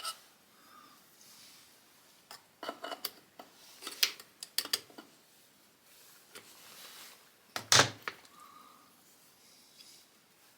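Scattered clicks and knocks of engine parts and tools being handled during motorcycle engine reassembly, with faint rustling between. A run of knocks comes a few seconds in, and the loudest single knock comes near the end.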